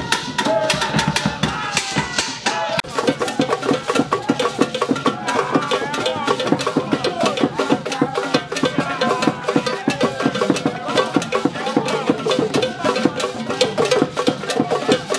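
Traditional Asante drums struck with curved sticks in a fast, steady rhythm, with gourd rattles shaking and voices singing along over the beat.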